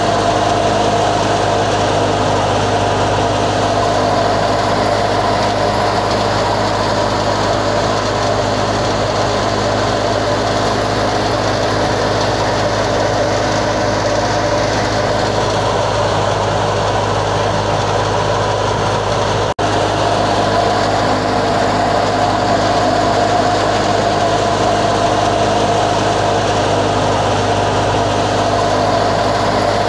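Wheat thresher machine running steadily: an even mechanical drone with a steady low hum and a higher steady tone above it, briefly cut off for an instant about twenty seconds in.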